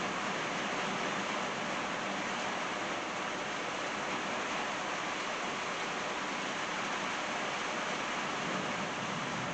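Steady rain shower falling on trees and a wet driveway: an even hiss that does not let up.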